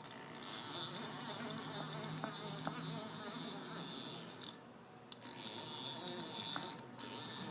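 Haas TM-1 CNC mill's axis servo drive whining with a steady high buzz while the X axis is jogged by the handwheel, with a low hum under it. The whine drops out briefly a little after halfway and again near the end.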